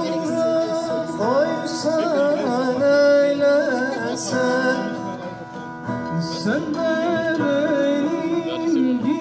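Live Turkish folk music: acoustic guitar and another plucked string instrument accompany a man singing an ornamented melody into a microphone.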